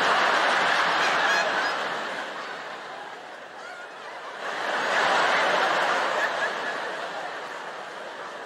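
A large arena audience laughing: a loud burst at the start that slowly dies down, then a second swell of laughter about four and a half seconds in that fades again.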